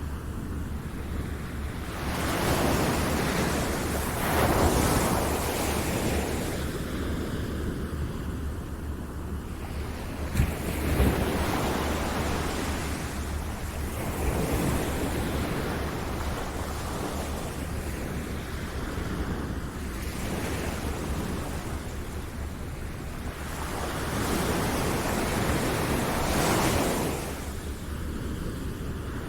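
Ocean surf: waves washing in as a steady hiss that swells several times, with a steady low hum underneath.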